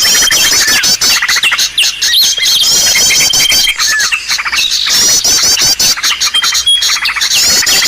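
Bird-lure (pikat) recording for small birds: dense, rapid high chirping and trilling from several small birds at once. A held high whistle recurs every few seconds in a looped pattern.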